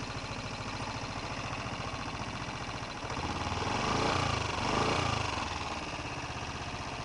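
Honda XLR 125 single-cylinder four-stroke engine idling with an even pulse, blipped twice in quick succession about three seconds in, then settling back to idle. The engine is being run to show a strange noise the owner places in the clutch.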